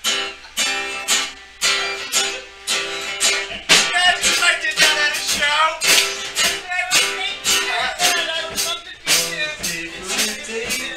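Guitar strummed in a steady rhythm, about two strokes a second, with a drum kit behind it.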